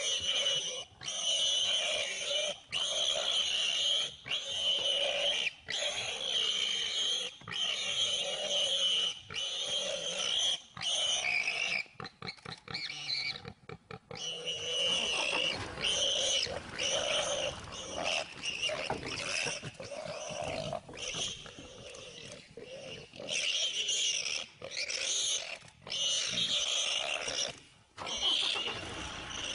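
Jaguar and wild boar fighting: harsh animal cries and snarls in repeated loud bursts, each about a second long, with short breaks between.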